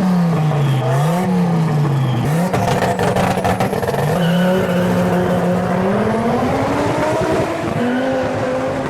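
Turbocharged car engine revving hard: its pitch rises and drops twice in quick succession, then holds and climbs slowly under load.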